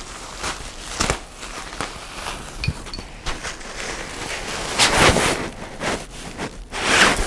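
Nylon stuff sack rustling and crinkling as smaller gear bags are stuffed into it and it is lifted and handled, with louder swishes about one, five and seven seconds in.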